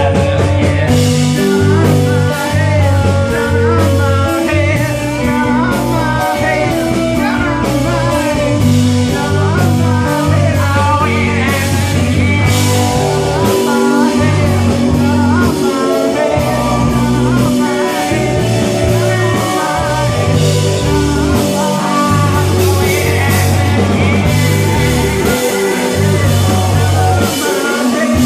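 Rock band playing a song live, with a singer over electric guitar, bass notes and repeated cymbal-like strikes.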